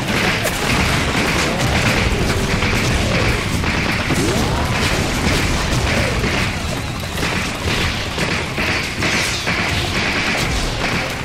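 Edited battle sound effects: dense rifle fire and booming explosions, mixed with music.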